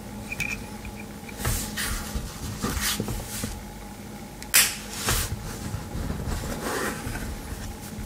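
Handling noise from a Victorinox Ranger Swiss Army knife as its tools are worked: a string of short scrapes and clicks, the sharpest click about four and a half seconds in, over a faint steady hum.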